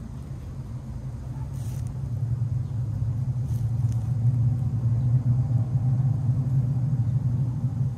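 Domestic cat purring close to the microphone while being stroked: a steady low rumble that grows louder over the first few seconds and then holds. There are a couple of faint rustles from the stroking.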